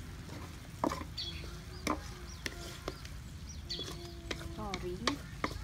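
Long wooden spatula knocking and scraping against a steel wok as chicken and ginger are stir-fried, in sharp strokes about once a second. Chickens clucking in the background between the strokes.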